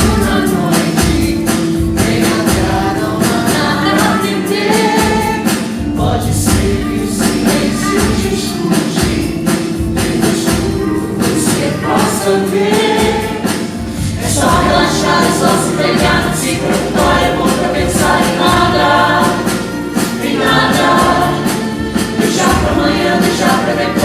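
Music: a group of voices singing over a band with a steady percussive beat, the voices growing fuller about halfway through.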